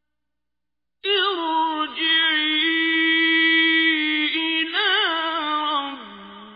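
Quran recitation: a single voice chanting in long, drawn-out melodic notes with wavering ornaments, starting about a second in after a moment of silence.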